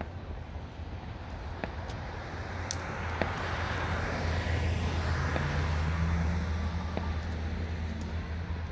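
A vehicle driving past on the road: its road noise swells to a peak about halfway through and fades again, over a steady low hum.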